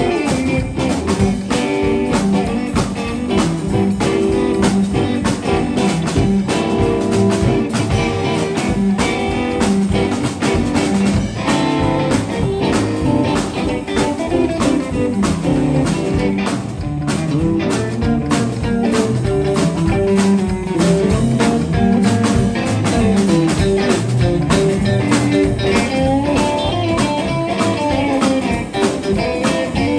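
Live blues band playing: two electric guitars through amplifiers, an upright bass and a drum kit, with a steady beat throughout.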